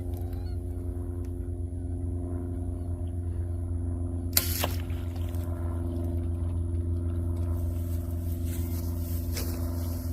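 Steady low engine drone throughout, with one sharp snap a little over four seconds in: a bowfishing bow being shot.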